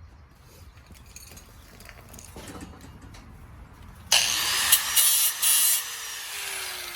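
Faint clicks and handling for a few seconds, then an angle grinder grinding metal welds, a sudden loud harsh rasp in bursts for about a second and a half; once it is let off, its motor winds down with a slowly falling whine.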